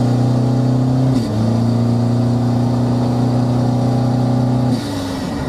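Tuned turbodiesel engine of a Toyota Innova pulling hard under acceleration, heard from inside the cabin: a steady strong engine drone with a brief dip about a second in, falling away near the end as the throttle eases.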